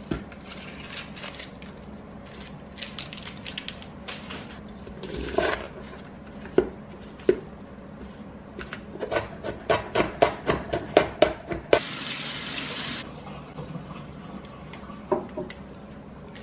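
Chef's knife slicing an onion on a cutting board: a few single knocks, then a run of quick knocks, several a second, from about nine seconds in. A steady hiss follows for about a second, with faint crackles of onion skin being peeled at the start.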